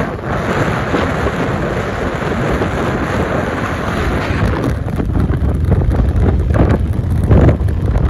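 Wind buffeting the microphone of a moving vehicle, over the low rumble of its engine and tyres on the road. The rush of wind is strongest for the first four seconds or so, then eases.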